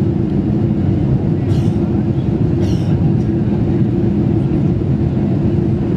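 Steady low cabin drone of a Boeing 747-400 in flight on approach, engine and airflow noise heard from inside the cabin at a window seat over the wing. Two faint, brief noises come about one and a half and nearly three seconds in.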